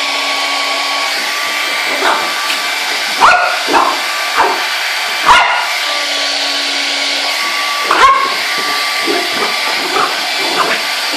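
Hair dryer running steadily while a dog barks and yips at it, in a string of short sharp barks. The loudest barks come about three to five seconds in and again about eight seconds in.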